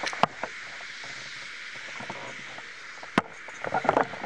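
Strong wind blowing steadily, a continuous rushing hiss, with a couple of sharp clicks.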